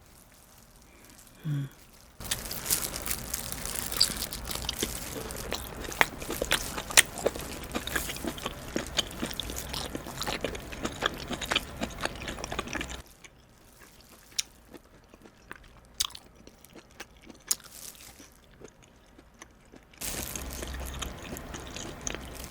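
Close-miked chewing of steamed abalone: crunchy, chewy bites with many small wet clicks. It is busy for about ten seconds, quieter with only scattered clicks for several seconds, then busy again near the end.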